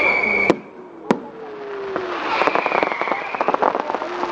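Fireworks going off: two sharp bangs about half a second apart, then a long run of rapid crackling from about halfway, with a faint whistle over it.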